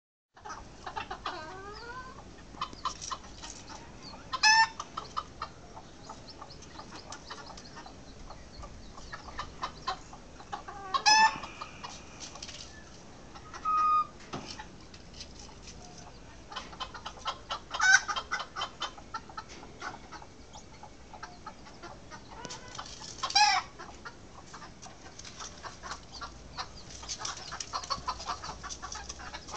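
Backyard chickens clucking and calling, with loud calls standing out about four, eleven, eighteen and twenty-three seconds in.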